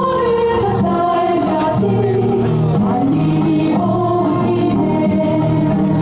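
A choir singing in harmony, several voices holding long notes over steady low notes.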